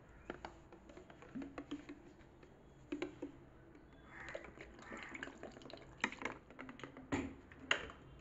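Faint clicks and light knocks of a steel mixer-grinder jar of chopped carrots being handled, with a soft stretch of water being poured in about halfway through.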